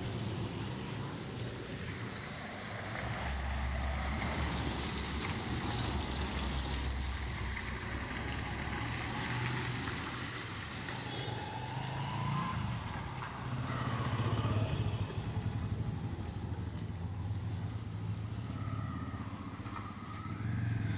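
Road traffic: motorcycle and car engines running and passing, a steady low hum that swells and fades as vehicles go by.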